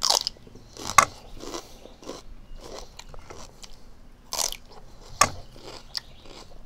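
A person biting and chewing raw celery stalks: a few loud, crisp crunches, near the start, about a second in and twice more past the middle, with softer chewing crunches in between.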